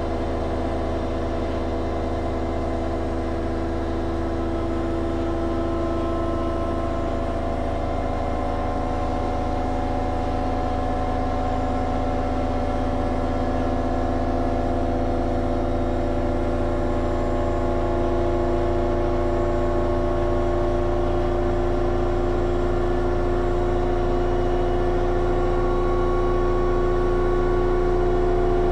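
Schulthess washing machine drum spinning, its motor giving a steady whine of several tones over a low hum that slowly rise in pitch and grow louder as the spin speeds up.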